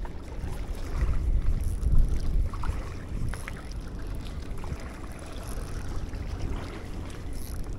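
Wind buffeting the microphone outdoors, a low fluctuating rumble, with a few faint clicks a couple of seconds in.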